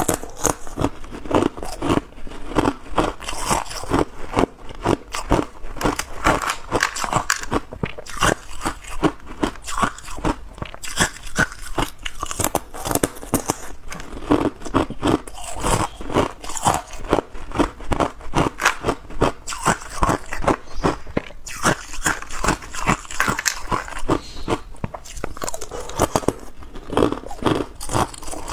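Clear hard ice being bitten and chewed: a rapid, crisp run of crunches and cracks close to the microphone, with only brief breaks.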